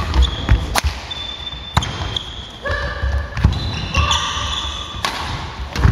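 Badminton rally: sharp cracks of rackets striking the shuttlecock, four or so about a second apart, with athletic shoes squeaking on the wooden court and the thud of footfalls.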